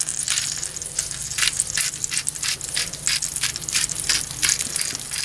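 Salt being dispensed over a roast on the grill: a hand-held salt container worked in quick, sharp, irregular strokes, about four a second.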